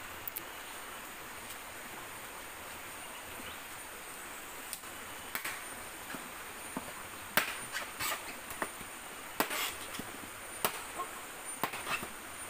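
Golok (machete) chopping bamboo poles: about eight sharp knocks at uneven intervals, beginning roughly five seconds in.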